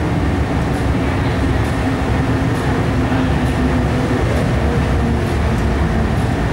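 MTR Tsuen Wan Line electric metro train moving alongside the underground platform. It makes a steady, loud rumble, with a faint whine that sinks slightly in pitch over the first few seconds.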